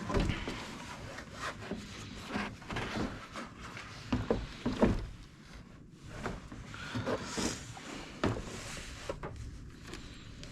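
Irregular rubbing and rustling with scattered light knocks and clicks: hands handling the plow's wiring harness and its plug connectors.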